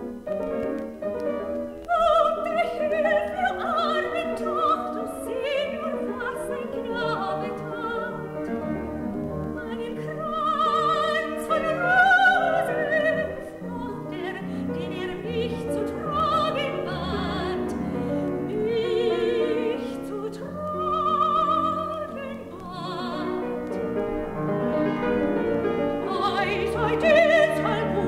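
Soprano singing an art song with piano accompaniment, from an LP. The piano plays alone for about the first two seconds, then the voice comes in.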